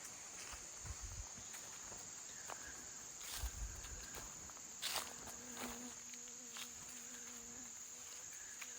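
Steady high-pitched chorus of trilling insects, with a few soft footstep thuds.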